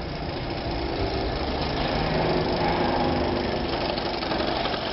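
Solex 5000 moped's small two-stroke engine running under way as the moped rides up, getting louder and rising in pitch around the middle. This is the engine's first restart after a rebuild.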